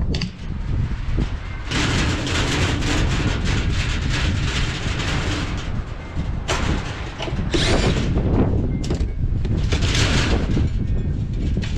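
Gusty wind buffeting the microphone: a steady low rumble with several louder rushing gusts, the longest lasting about four seconds.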